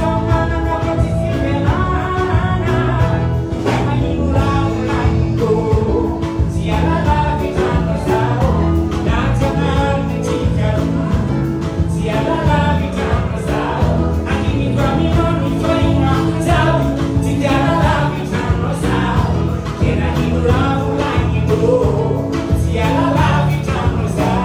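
Live band playing a dance song: a man singing into a microphone over keyboard and drums, with a steady beat.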